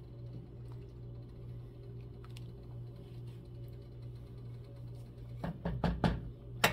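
A steady low hum with a few faint light ticks, then a quick run of clinks and knocks near the end: kitchen utensils knocking against a soup pot.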